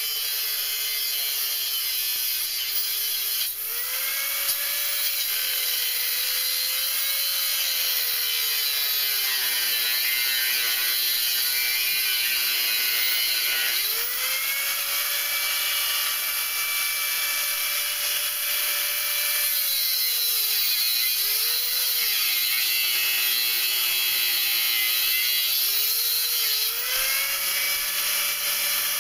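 Angle grinder cutting through angle iron: a steady motor whine with a grinding hiss that sags in pitch in several stretches as the disc bites into the steel, and rises again as the load eases.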